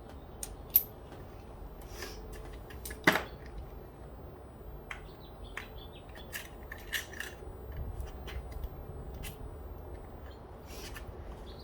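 Scattered light metallic clicks and taps of a spark plug, socket and hand tools being handled, with one sharper click about three seconds in.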